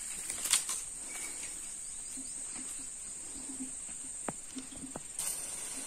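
Insects shrilling steadily, high-pitched. Near the end a hiss sets in from a pesticide spray wand as the pressurised jet starts.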